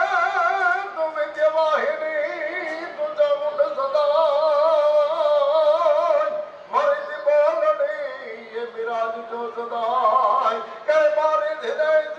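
A man singing solo into a microphone: long held notes with a wide, wavering vibrato and slides between pitches, phrase after phrase.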